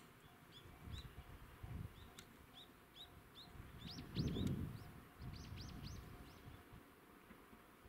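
A small bird calling: a string of short chirps every half second or so, then a quicker run of sharp, sweeping calls. Low, muffled rumbles come and go underneath, the loudest about four seconds in.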